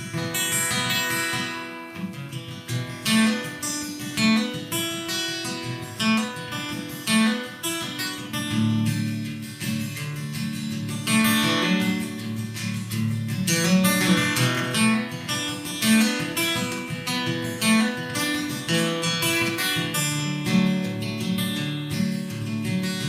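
Solo acoustic guitar playing a song's instrumental introduction, picked and strummed chords in a steady rhythm.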